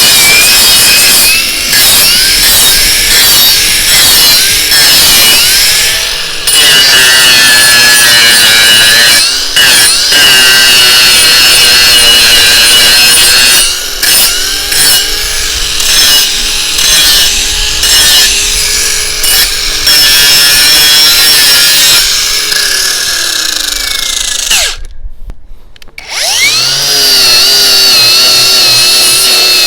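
Cordless brushless angle grinder (Parkside PWSAP 20-Li C3) running loudly under load, its motor whine dipping and recovering again and again as the disc bites. About 25 seconds in it stops briefly, then spins back up with a rising whine.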